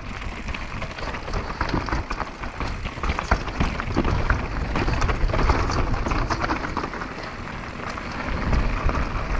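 Downhill mountain bike rolling fast over a loose, stony trail: tyres crunching on gravel and rocks, with a constant rattle of clicks and knocks from the bike, over a low rumble of wind on the microphone.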